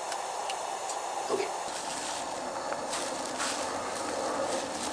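Soft scraping and rustling as plastic-gloved hands push raw ground meat off a foam tray into a stainless steel bowl, over a steady background hiss.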